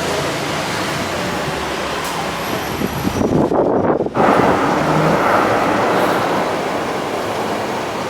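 Steady outdoor traffic noise that swells about three seconds in, as a vehicle passes, then eases off.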